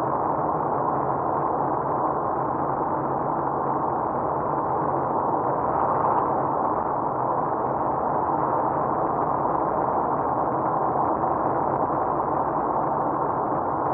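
Steady, muffled road and engine noise inside a car cruising on a highway, picked up by a dashcam's microphone. There is a slight swell about six seconds in as an oncoming lorry passes.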